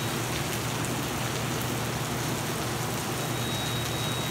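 Heavy rain pouring down and splashing on wet pavement and the truck, with scattered sharp drop ticks, heard through an open vehicle window. A low steady hum runs beneath it.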